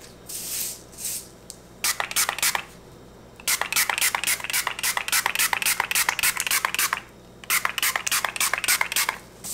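Trigger spray bottle of 99% rubbing alcohol pumped over the top of freshly poured cold process soap, in quick runs of short hissing sprays, several a second, with brief pauses between runs. The alcohol mist keeps soda ash from forming on the exposed soap.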